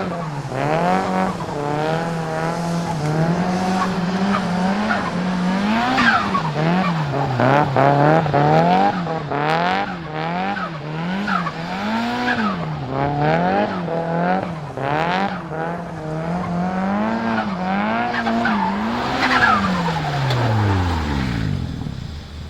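Nissan Silvia S15's turbocharged SR20DET four-cylinder revving up and down about once a second under repeated throttle blips as the car drifts, with short turbo flutter bursts on lift-off and tyre noise. Near the end the revs fall away and the sound fades.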